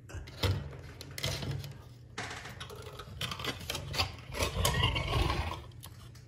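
Plastic trim ring and lens of a recessed ceiling light being pulled down from the ceiling: scattered clicks and knocks, with a scraping rustle about four and a half seconds in.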